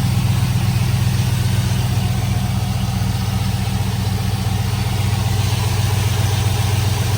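A 2005 Chevrolet Silverado's 5.3-litre V8 idling steadily, with no hiss of a vacuum leak; the leak past the valve covers is cured by factory valve covers and new gaskets.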